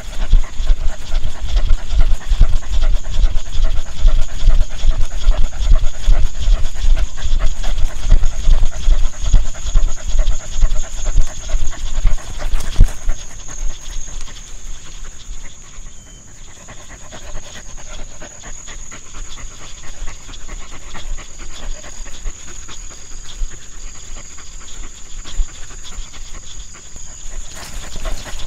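A dog panting, fast and steady, louder in the first half and softer from about halfway on. A thin steady high tone runs behind it.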